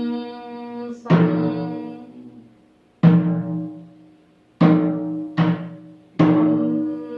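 Slow meditative background music: single low pitched notes struck or plucked five times at uneven intervals, each ringing out and fading over a second or two.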